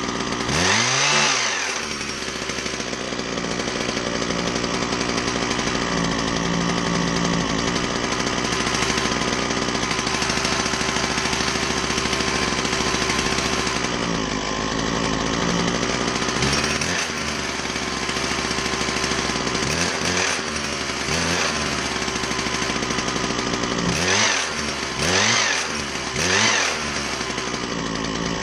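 Husqvarna 122HD60 hedge trimmer's small two-stroke engine running, briefly revving up and back down about a second in, a couple of times in the middle and three times near the end, while a screwdriver turns its carburetor adjustment screw to tune it.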